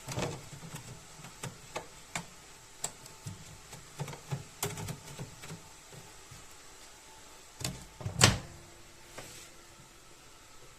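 Clicks and knocks from a Cecotec Grandheat 3150 microwave oven being handled, irregularly spaced, with a louder thump about eight seconds in, like its door being shut.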